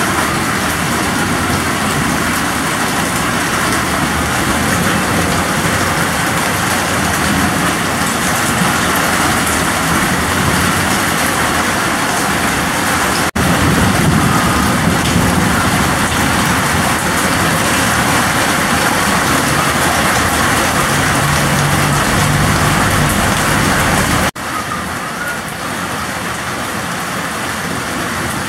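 Heavy rain pouring steadily, with a deeper low rumble underneath in the middle stretch; the sound cuts off abruptly twice and resumes.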